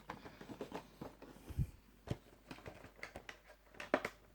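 Small, irregular clicks and taps from handling boxed Funko Pop vinyl figures and their cardboard-and-plastic window boxes, with a dull thump about one and a half seconds in and a sharper click near the end.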